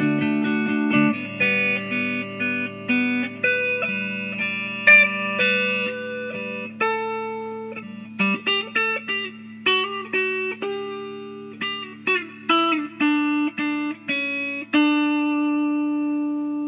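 Background music: a solo guitar playing a slow melody of single plucked notes over a held bass, ending on a long chord that rings out and fades.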